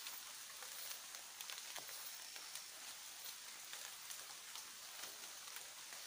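Faint rainforest background: a steady high hiss with scattered small ticks.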